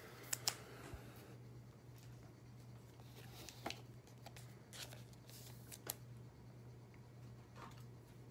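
Glossy Topps Chrome trading cards being handled and slid through by hand: a few faint, scattered clicks and rustles, over a low steady hum.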